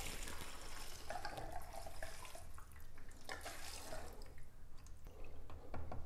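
Gasoline pouring from a plastic gas can into a John Deere JA65 walk-behind mower's fuel tank: a quiet, steady trickle of fuel.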